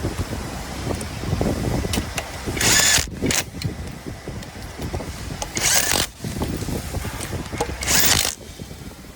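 A power tool running in three short bursts of about half a second each, driving in the screws that hold the copper granulator's blades, with low clattering of metal parts between bursts.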